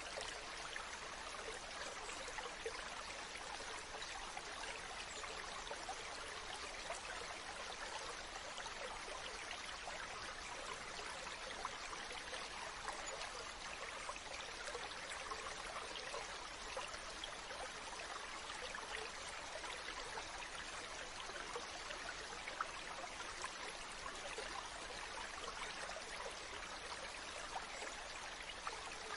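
Shallow stream running over rocks: a steady babble and trickle of water, with small splashes throughout.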